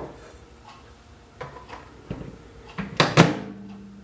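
Microwave door handled with a few light knocks, then shut with a loud thud about three seconds in. A steady low hum starts right after the thud.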